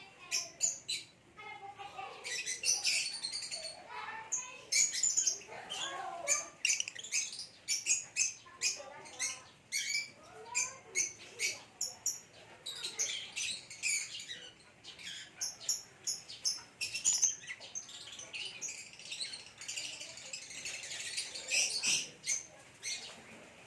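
Lovebirds, a green Fischer's lovebird and a parblue, chirping and chattering in a fast, continuous run of sharp, high calls.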